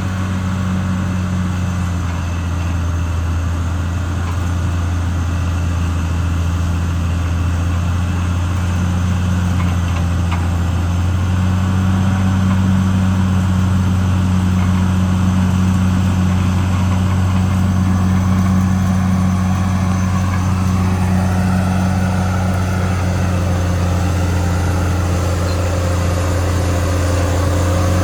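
Caterpillar D6R XL bulldozer's diesel engine running steadily with a low drone; a faint rising whine comes in near the end.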